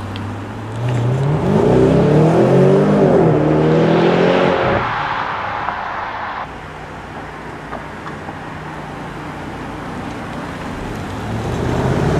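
BMW 750i xDrive's twin-turbo V8 accelerating hard away. The engine note rises, drops once at an upshift and rises again, then breaks off about five seconds in, leaving a fainter steady hum.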